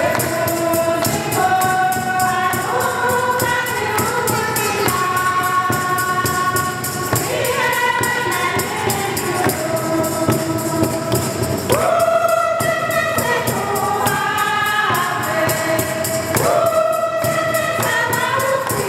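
Church choir singing a hymn in held, sustained notes, with a tambourine keeping a steady beat.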